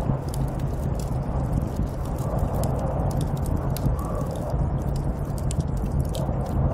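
Snowstorm wind blowing steadily, muffled and low, with a scatter of small sharp crackles and ticks throughout.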